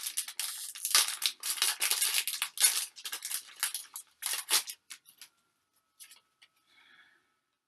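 A foil Pokémon TCG booster pack being torn open, with crinkling and ripping of the foil wrapper for about four and a half seconds. A few faint rustles follow as the cards are handled.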